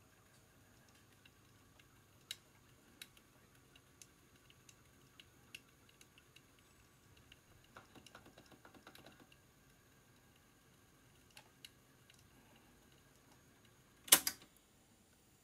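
Small plastic and metal clicks of a cassette being handled in the open transport of an Akai GXC-709D cassette deck, with a short rattle about eight seconds in and a much louder clatter near the end.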